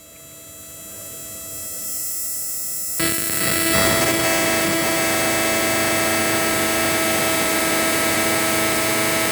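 Electric fishing machine, a 12 V to 1200 V inverter, running under test with a loud electrical buzzing hum and hiss. The hum builds up over the first three seconds, then holds steady.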